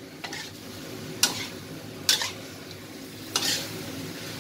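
Pork chunks sizzling in a stainless-steel frying pan as a spatula stirs them, scraping sharply across the pan three times.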